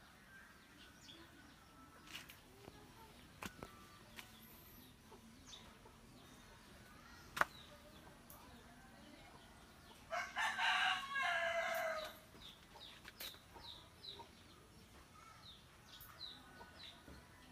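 A rooster crows once, about ten seconds in, one long call of about two seconds. Scattered sharp clicks sound here and there, the loudest a little after seven seconds, and a run of short high chirps comes near the end.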